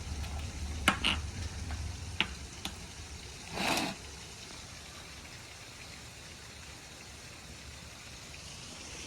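Steady rain falling, an even hiss with a few sharp drip-like ticks in the first few seconds and a brief louder swish a little under halfway through.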